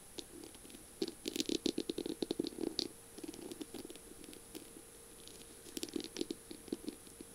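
Long fingernails tapping and scratching on the beaded, sequinned barrel of a feather pen, making flurries of quick clicks. The clicks are densest from about a second in to about three seconds, and a second cluster comes about six seconds in.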